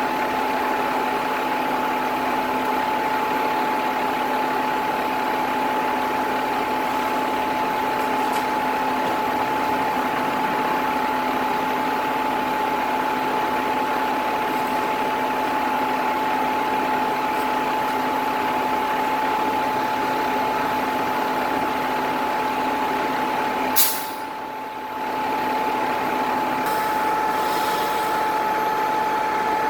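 A heavy engine running steadily, with a constant whine over its noise. About three-quarters of the way through there is a sharp click and the sound drops for a couple of seconds, then the running resumes with a slightly changed pitch.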